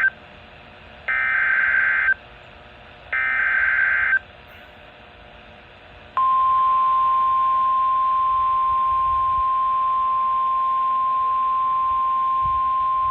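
NOAA Weather Radio EAS alert opening. Two one-second bursts of warbling SAME digital header tones, a second apart, carry the Severe Thunderstorm Watch (SVA) alert code, with faint radio hiss between them. About six seconds in, the steady 1050 Hz warning alarm tone starts and holds.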